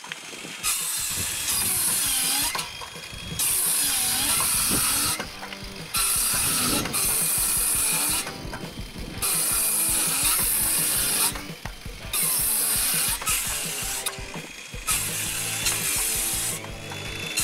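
RIDGID Gen5X R8652 cordless 7-1/4-inch circular saw, with a brushed motor, cutting through 2x4s one after another. There are about six cuts, each lasting a second and a half to two seconds with the blade in the wood. Between cuts the motor winds down and spins back up.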